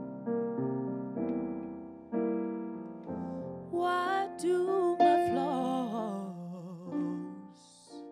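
Soft electric piano chords from a stage keyboard, joined partway through by a woman's soulful R&B vocal line, held notes with wavering, bending runs.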